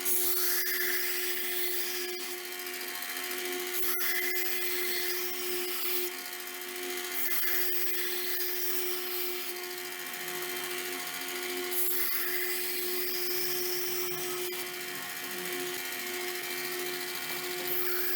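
Electric grinder running at a steady speed while grinding steel, a constant motor hum under a high hiss that swells and fades as the metal meets the abrasive.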